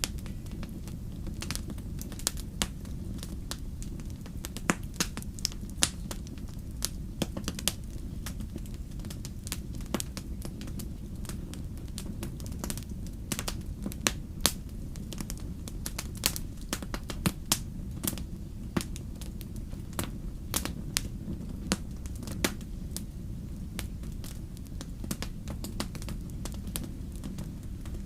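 Wood campfire crackling, with sharp irregular pops several times a second over a steady low rumble.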